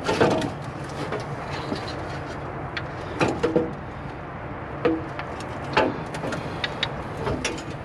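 Irregular metallic knocks and clinks, some with a brief ring, as a cylinder head is worked loose from a V8 engine block and its headers, over a steady low hum.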